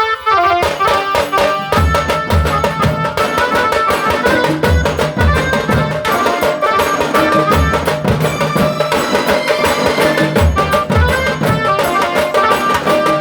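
Tasa band music: rapid tasa drum strokes and regular deep bass-drum beats under a melody line.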